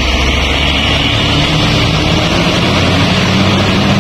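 Tour bus's diesel engine pulling past close by: a steady low drone whose pitch shifts slightly, over road noise.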